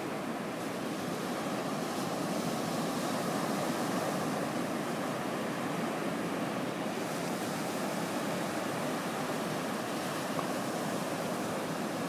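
Ocean surf washing onto a beach: a steady rush of breaking waves and wash, with no bird calls heard.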